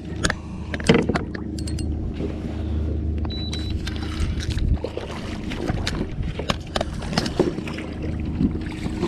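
Steady low hum of the boat, with scattered light clicks and knocks from tackle and gear being handled.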